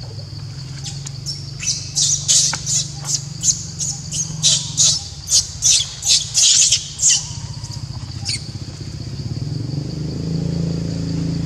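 Young macaque screaming in a rapid series of short, shrill screeches, about two or three a second, while it is chased for the fruit it holds; the screams start about two seconds in and stop about three seconds before the end. A steady low hum runs underneath.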